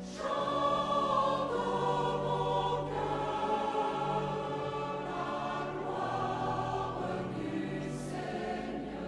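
Choral music: a choir singing slow, sustained chords.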